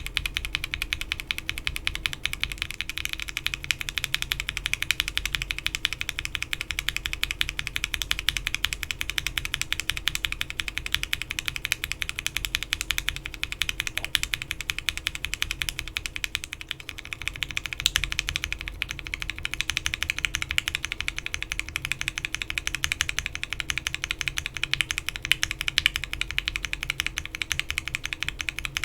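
Continuous fast typing on a mechanical keyboard with lubed Alpaca linear switches (frankenswitches with swapped top housings and stems, 67 g long springs), in a Bakeneko60 case with an FR4 plate and PBT keycaps. The typing eases off briefly a little past the middle, where the switch variant changes.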